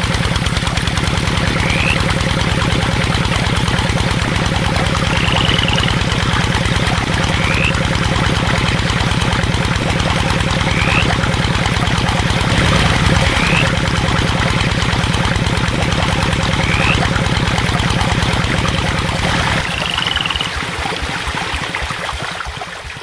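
Small engine idling steadily with a fast, even chug, thinning and dying down in the last few seconds. Short high rising chirps recur every couple of seconds over it.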